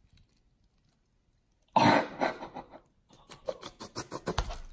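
Squelching and rapid wet clicking as a decades-old jellied block of canned luncheon meat slides out of its tipped tin can, ending in a low thud as it drops into a plastic bowl. A short, loud rasping sound comes about two seconds in.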